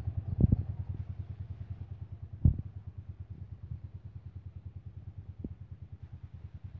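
Honda CG Titan's 125 cc single-cylinder four-stroke engine idling with an even, rapid putter. Two brief knocks sound near the start, the louder one about two and a half seconds in.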